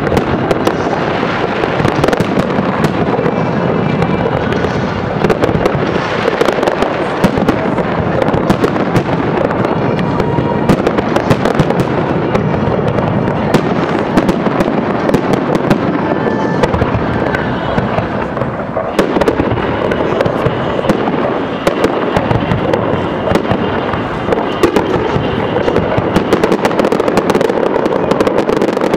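Aerial fireworks display going off in a loud, dense barrage of bangs and crackles, many per second with no let-up.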